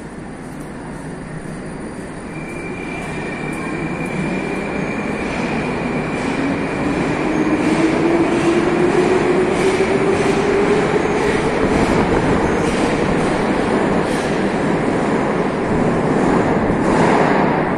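Moscow metro train running through the station, growing louder over the first several seconds. Its electric motor whine rises in pitch as it gathers speed. Regular wheel clicks over rail joints run under a thin high squeal in the first half.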